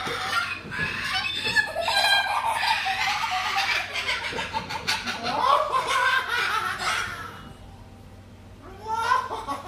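White cockatoo making laughter-like calls and chatter for about seven seconds, then a short burst of calls near the end after a brief lull.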